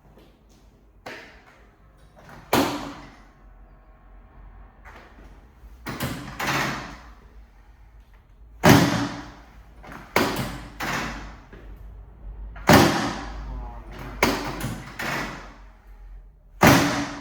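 A series of sharp knocks and thuds from a chiropractic adjustment on a treatment table: a loud knock about every four seconds, with lighter knocks in quick pairs and threes between them.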